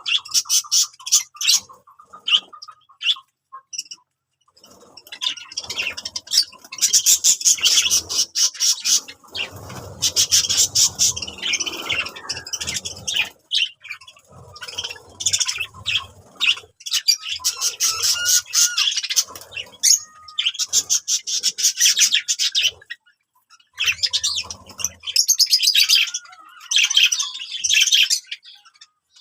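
Budgerigars chattering and chirping in rapid bouts of quick warbling notes, with a few short pauses.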